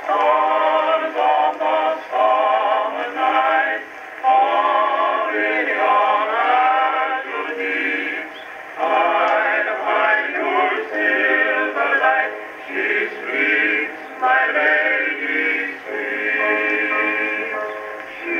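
Male vocal quartet singing a slow, old-time song in close harmony, from an old Edison electrical-recording disc. The sound is thin and narrow, with no deep bass or bright treble, as on early records.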